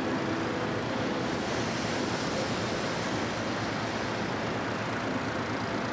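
Steady rushing wind noise on the microphone, even throughout with no breaks.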